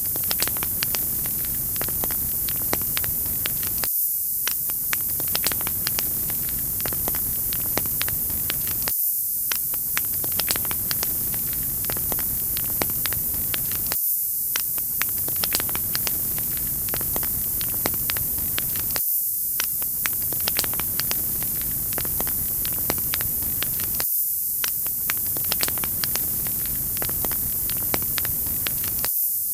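Wood fire crackling in a fireplace: a steady hiss of flames with many quick, irregular pops and snaps of burning firewood. The sound briefly thins out about every five seconds.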